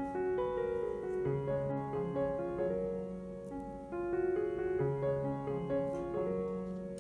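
Background piano music: a melody of separate notes over low bass notes.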